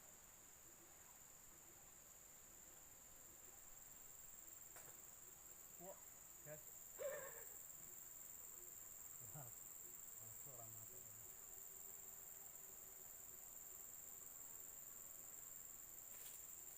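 Steady, high-pitched chorus of insects, crickets or cicadas, holding one even tone. A few faint, brief sounds come through about six to seven seconds in.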